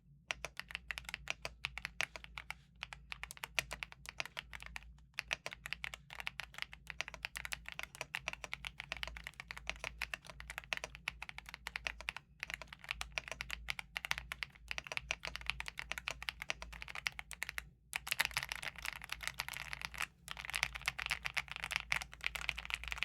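Typing on an Attack Shark X85 Pro mechanical keyboard with its stock switches: a fast, continuous run of key clicks with a few brief pauses.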